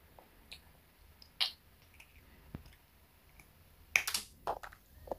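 Small, scattered clicks, then a quick run of crisp clicks about four seconds in, from a child handling a candy necklace and biting into its hard candy beads.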